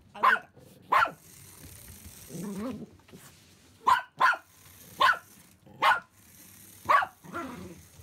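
Pomeranian barking excitedly in short, sharp yaps, about seven in all, some single and some in quick pairs.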